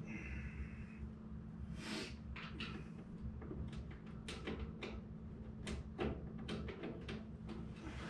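Irregular knocks and clicks, like parts and tools being handled, over a steady low hum, with a brief squeak in the first second.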